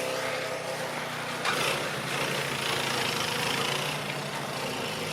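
An engine running steadily at a constant speed, with a brief swell of noise about a second and a half in.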